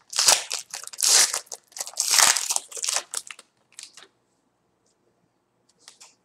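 Wrapper of a 2014-15 Panini Threads basketball card pack crinkling and crumpling in the hands as the cards are pulled out, in several loud rustles over the first three and a half seconds. A brief faint rustle comes near the end.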